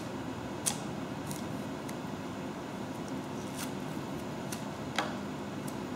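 Small scattered clicks and rustles of fingers handling wires and plastic connectors in a moped's headlight housing, the sharpest click near the end, over a steady room hum.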